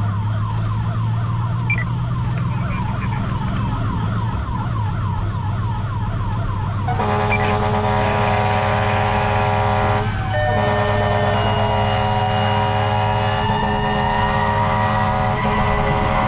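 A fire engine's siren on an emergency run: a fast yelp of quickly repeated rising sweeps for about seven seconds. It then switches to a steady, many-toned horn, broken once briefly, while a second siren slowly winds up in pitch over the truck's engine hum.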